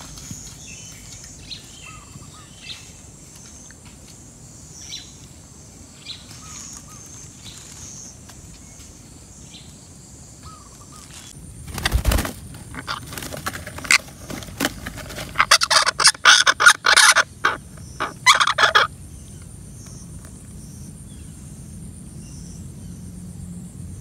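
Red-breasted parakeets giving a run of loud, harsh squawks for several seconds about halfway through, just after a sharp knock. Before that there are only faint short chirps over a steady high insect hiss.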